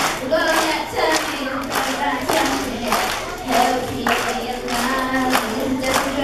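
Children singing a pop song into a microphone over a strummed small acoustic guitar, with hand claps keeping a steady beat a little under twice a second.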